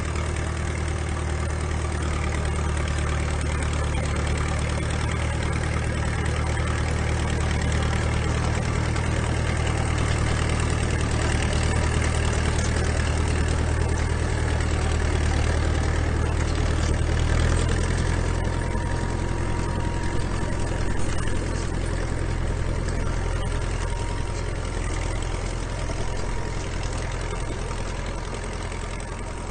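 A 1940s crawler tractor's engine running steadily under load as it tows a dead second crawler on a chain. The engine note shifts lower about two-thirds of the way through.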